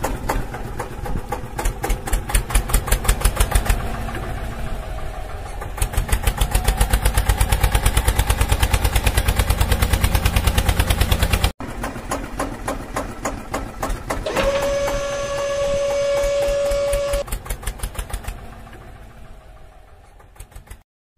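Rapid, rhythmic chugging engine sound of a homemade toy tractor running, broken by a sudden cut about midway. For a few seconds after that a steady higher tone sounds over it, and the chugging then fades out near the end.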